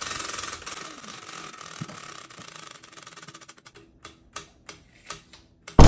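Prize wheel spinning, its flapper clicking rapidly over the rim pegs, the clicks slowing and spreading out to a few separate ticks near the end as the wheel comes to rest.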